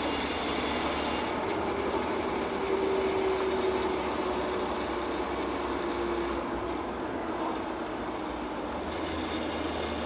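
Cab and road noise of a 1997 Ford Ranger pickup rolling in fourth gear, with a whirring whine from its rebuilt rear differential that comes in about a second and a half in, slowly drops in pitch and fades near the end. The owner says the whirring comes on when he decelerates in the higher gear and gets worse as the differential heats up, and that it can be caused by the ring and pinion gears not meshing properly.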